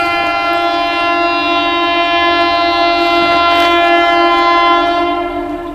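Horn of an approaching southbound passenger train sounding one long, loud, steady blast of several notes together as it nears the grade crossing.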